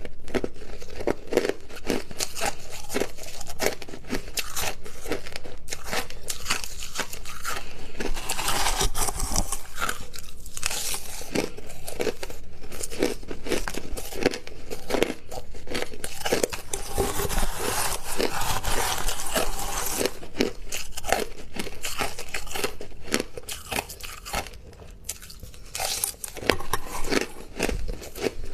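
Close-up chewing of hard crushed ice: dense, irregular crunching and crackling of ice breaking between the teeth. It thins out to a few separate crunches near the end.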